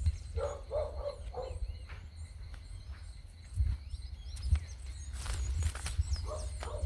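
Outdoor garden ambience: small birds chirping on and off over a steady high insect drone, with a constant low rumble on the microphone. A few short low calls come in the first second or so and again near the end, and a brief rustle comes about five seconds in.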